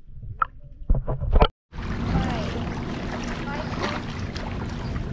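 Muffled knocks and thumps from a camera held underwater. After a brief cut, a steady rush of wind on the microphone and sea water at a rocky shore, with faint voices.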